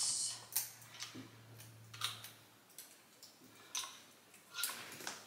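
Quiet, scattered clicks and rustling from clothes on hangers being handled and sorted, with a faint low hum for the first couple of seconds.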